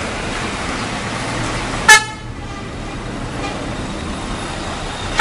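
Bus telolet horn giving one short, loud toot about two seconds in, over a steady background of street noise. Right at the end a second blast starts, its tones stepping downward.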